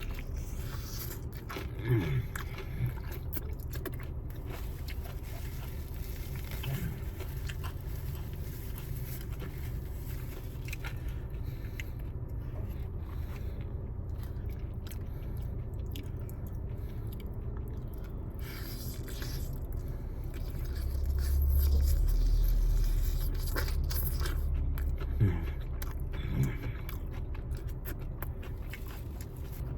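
Close-up chewing and biting of fried chicken wings, with small wet crackles and smacks over a steady low hum. A deeper rumble swells up for a few seconds past the middle.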